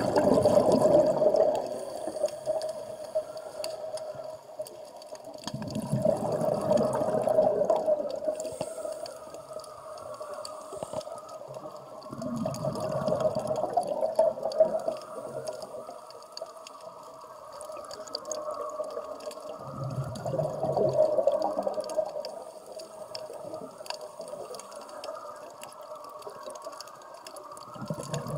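Scuba diver's exhaled bubbles gurgling out of the regulator and rising, in swells about every seven seconds as the diver breathes, heard underwater. A steady hum runs beneath.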